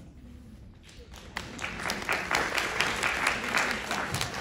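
Many people clapping in applause, starting about a second and a half in and thinning out near the end.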